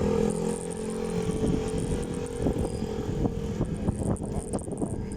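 A motor vehicle's engine drones, and its note fades over the first second or so as it passes. Irregular knocks and rattles follow, over a steady high insect buzz.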